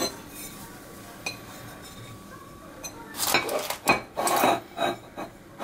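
Ceramic plate clinking and scraping against the rim of a bowl and the kitchen counter as it is set upside down over the bowl. A short burst of clatter starts about three seconds in and lasts around two seconds.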